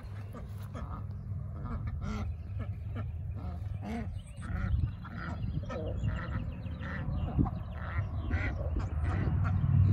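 Domestic ducks quacking, a run of short, separate quacks repeated many times.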